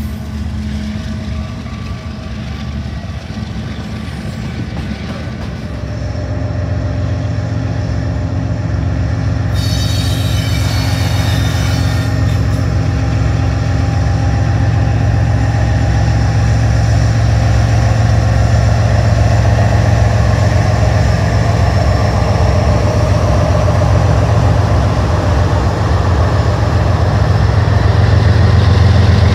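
BNSF diesel freight locomotives running past at close range: a steady low engine drone that grows louder as the lead units come up, with wheel and rail noise. A brief burst of high steady tones comes about ten seconds in.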